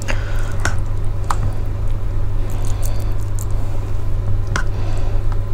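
Metal spoon stirring and scooping soft rice porridge in a plate, with soft squishing and a few sharp clicks of the spoon against the plate, over a steady low hum.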